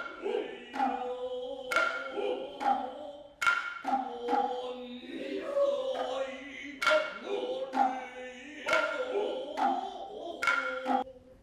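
Traditional Noh-style chanting in a sustained, drawn-out voice, punctuated by sharp strikes of tsuzumi hourglass hand drums at uneven intervals of about a second; the chant and drums stop suddenly near the end.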